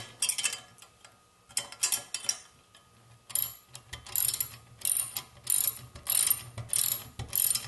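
Ratchet wrench clicking in short strokes as it snugs the lock nuts on an ice auger's STX point blade bolts. A few strokes come early, then a steady run of about one and a half strokes a second from about halfway in. The nuts are only being brought up loosely tight before the final tightening.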